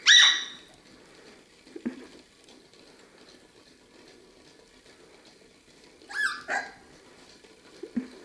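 Six-week-old puppies giving high-pitched yips: one sharp falling yip at the start and two quick yips a little after six seconds, with a couple of soft knocks in between.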